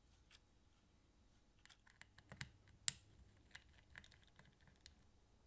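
Faint, scattered small clicks and ticks of a precision screwdriver turning screws in a portable cassette player's metal-and-plastic mechanism, starting about a second and a half in, with one sharper click about three seconds in.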